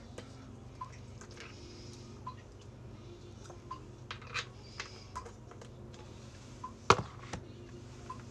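Small plastic bottle with a red cap being handled and its cap worked open and shut: a scatter of light plastic clicks, the loudest a sharp snap about seven seconds in, over a low steady hum.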